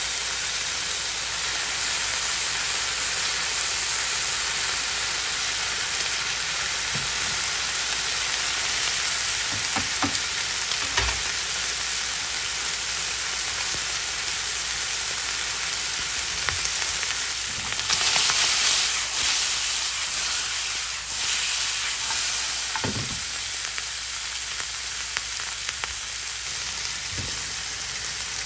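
Pork slices and sliced green peppers sizzling steadily in oil in a frying pan, with a few scattered knocks of a spatula against the pan. The sizzle swells louder for a few seconds about two-thirds of the way through.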